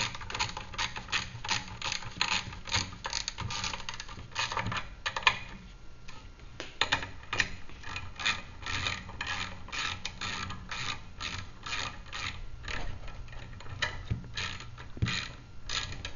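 Ratchet wrench clicking in quick runs as nuts on the sweeper's tray supports are tightened, with a short pause about five and a half seconds in.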